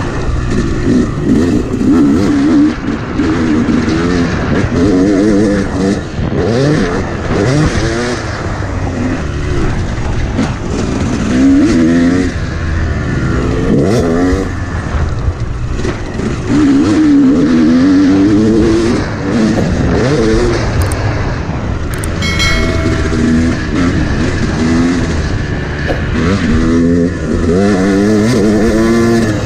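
Dirt bike engine being ridden hard, revving up and dropping back again and again as the rider accelerates and backs off between corners.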